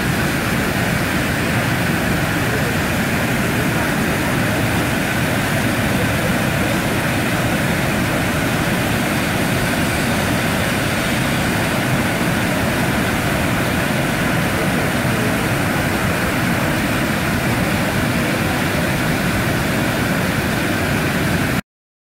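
Wide, low waterfall cascading over a rock ledge, its water rushing in a steady loud roar that cuts off suddenly near the end.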